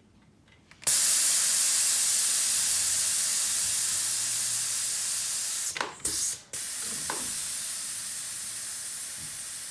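Air hissing out of a wide bicycle tyre's valve as it is let down so the wheel will clear the brakes. The hiss starts about a second in, breaks off briefly around the middle, then carries on a little weaker.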